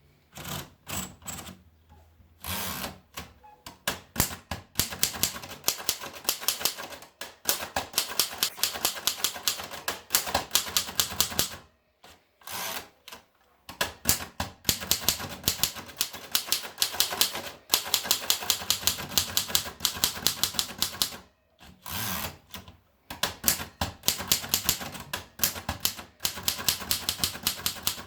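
Remington Junior manual typewriter being typed on: quick runs of sharp key and typebar strikes, several a second, broken by brief pauses.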